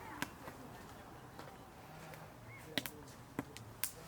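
A few short, sharp knocks or clicks: one just after the start, then a quick cluster of four about three seconds in, over faint background.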